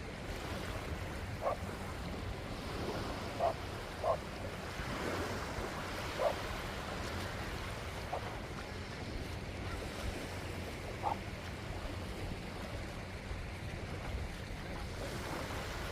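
Waves washing on a beach shore with wind on the microphone, a steady rush of noise. About six brief, sharp sounds stand out, scattered through the first eleven seconds.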